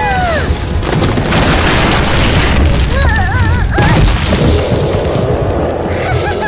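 Cartoon sound effects: a loud, sustained rumbling boom like an explosion or crash. High-pitched, squeaky cartoon character cries waver over it at the start and again about three seconds in.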